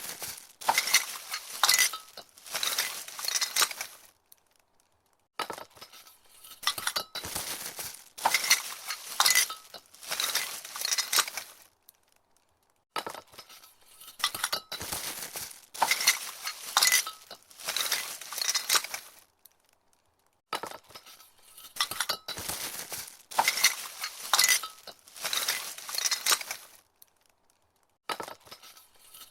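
Glass Christmas tree ornaments clinking against each other inside their cardboard box as the package is picked up, handled and set down, in four rounds of rattling with short pauses between.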